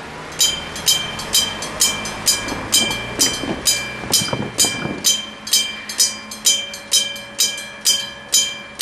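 Railway level-crossing warning alarm starts about half a second in and clangs about twice a second, each stroke sharp with a quick ringing decay. A low rumble underneath fades out about five seconds in.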